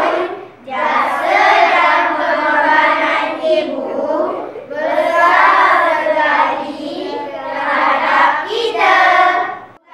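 A group of schoolchildren chanting and singing together in unison in a Malay choral-speaking piece (bicara berirama), in long sustained phrases with brief breaks between them, cutting off just before the end.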